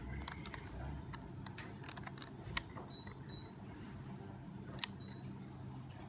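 A string of sharp clicks, the loudest about two and a half and five seconds in, each followed shortly by short high beeps, typical of a Carrier split-type air conditioner's indoor unit beeping to acknowledge its remote. A low steady hum runs underneath.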